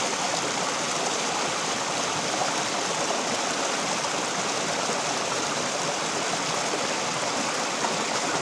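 Running water, such as a stream or small falls, rushing with a steady, even sound that does not change.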